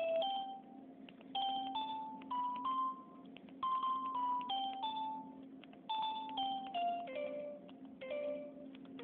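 Cell phone keypad note tones, played one key at a time as a little tune: a quick run of single beeping notes stepping up and down in pitch, with faint clicks of the keys.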